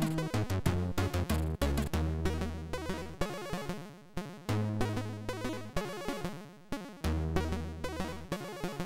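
Commodore 64 SID chip music: a chiptune with quick, sharp drum hits, held low bass notes about a second long, and fast-stepping arpeggio notes above.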